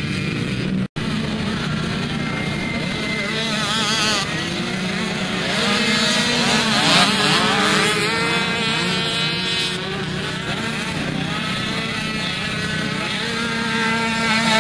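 Several small youth ATV engines (mini quads) running and revving as the quads ride past, their pitch rising and falling with the throttle. The sound is loudest in the middle. There is a brief cut to silence about a second in.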